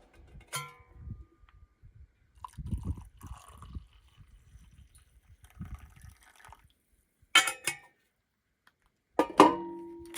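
Clinks and knocks of camp kitchenware being handled, with rustling between them. The loudest knock comes near the end and leaves one clear tone ringing on.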